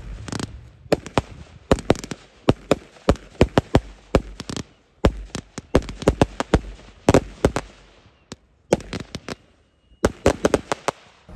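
Two Winda Pulse Pounder salute cakes firing at once: a rapid, irregular string of loud bangs (reports with no colour effects), several a second. There is a short lull about eight seconds in, then a last cluster of bangs.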